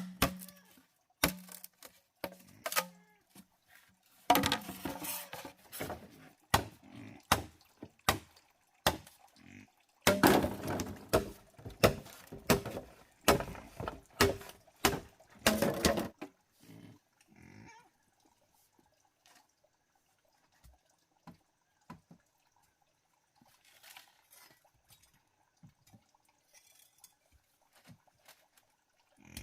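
Water splashing and sloshing, mixed with sharp knocks and clicks, busiest in two stretches in the first half, then dying down to occasional faint ticks.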